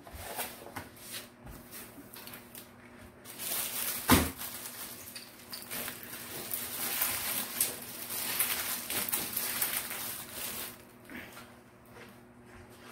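Plastic cover film on a rolled diamond-painting canvas crinkling and rustling as the canvas is unrolled and pressed flat by hand, with one sharp knock about four seconds in.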